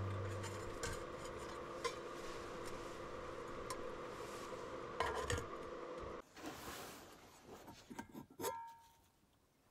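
Light clinks and knocks of metal camping cookware being handled and set on an induction cooktop, a few scattered taps and two closer knocks near the end, over fading background music that cuts off about six seconds in.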